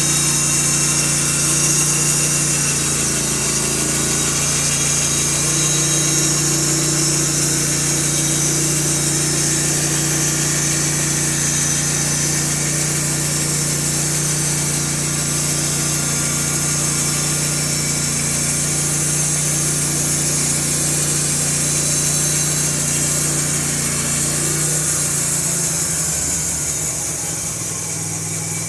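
Norwood LM2000 portable band sawmill running, its gas engine holding a steady speed as the band blade saws boards, with a bright hiss over the engine note. Near the end the engine note shifts and the sound eases slightly.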